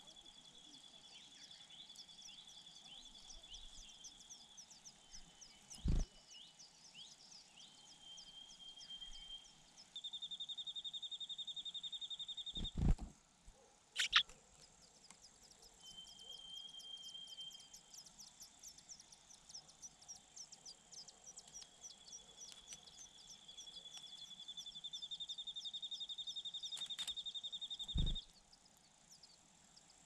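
Insects calling: a high, buzzing, pulsed trill that swells and fades several times, over a steady fast ticking. Three dull low thumps and a sharp click break in at intervals.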